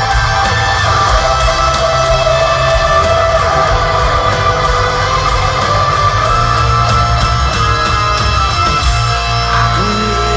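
Hard rock band playing live and loud, with no vocals: distorted electric guitar holding long notes over bass and drums.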